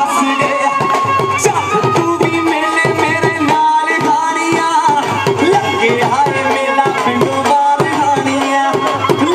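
Instrumental Punjabi bhangra music: fast hand-drum strokes under a held melody line, at a steady level.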